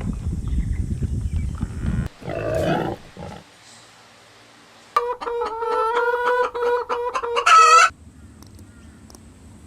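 Rooster crowing: one long crow of about three seconds, beginning about halfway through and ending in a loud, higher final note. Before it there is a low rumbling noise and a short call about two seconds in.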